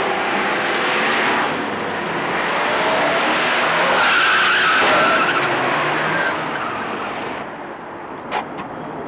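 A car driven hard, its tyres skidding and squealing; a wavering high screech is loudest about four to six seconds in. The sound then fades, and a few sharp knocks come near the end.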